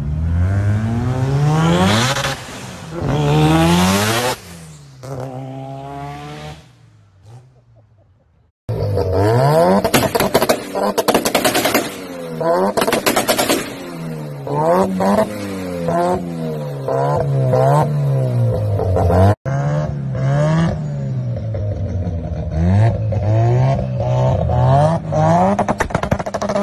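Rotary-engined cars at high revs across three clips. First a car passes with its engine pitch rising and falling twice, then fading away. Then a Mazda RX-7's rotary engine is revved hard over and over, with cracking bangs as flames shoot from the exhaust, and finally a yellow Mazda RX-7's rotary engine revs up and down repeatedly as the car swings around.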